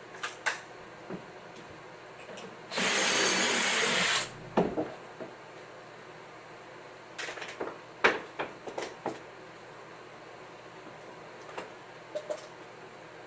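A power tool runs in one short burst of about a second and a half, with knocks and clatter of wood and tools handled around it.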